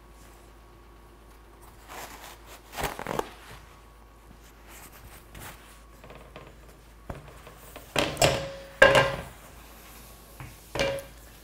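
Cast iron skillet being handled on a gas stove's grates while it is wiped with a shop towel: a few clunks and knocks of metal on metal, some with a short ring. The loudest pair comes about eight to nine seconds in and one more just before the end.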